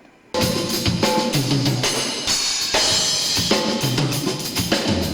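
Live band kicks in abruptly about a third of a second in, drum kit hits and a bass line carrying an instrumental passage without vocals.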